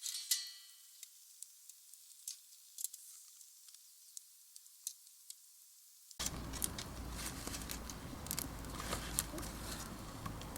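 Wood fire crackling in a steel fire pit: a soft hiss with scattered sharp pops, and a short ringing note right at the start. About six seconds in it cuts abruptly to a louder, denser noise with a steady low rumble underneath.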